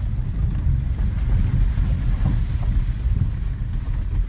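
Low, steady rumble of a pickup truck's engine and tyres heard from inside the cab while driving slowly over a muddy, rutted dirt track.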